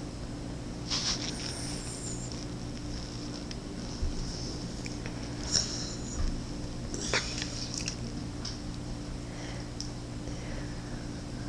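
Dog's quiet mouth sounds: a handful of short, scattered wet smacks and clicks, over a steady low hum.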